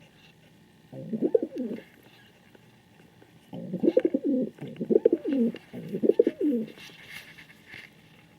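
King pigeon cooing: one coo about a second in, then three more in quick succession, each call rising and falling in pitch.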